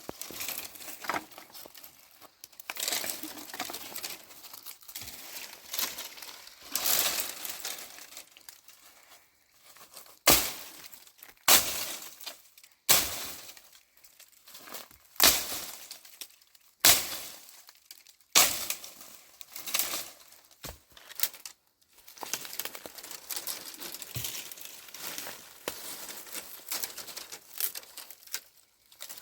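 Irregular sharp clinks and knocks, about one every one to two seconds from about ten seconds in, among rustling and crinkling handling sounds.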